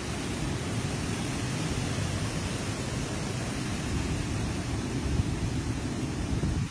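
Steady storm noise of wind and rain, with wind rumbling and buffeting on the phone's microphone.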